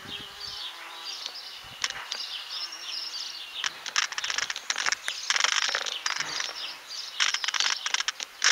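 Small songbirds chirping and twittering in quick runs of high notes, thickest about four seconds in and again near seven seconds.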